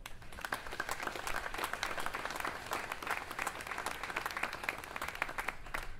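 Seated audience applauding: dense, steady clapping from many hands.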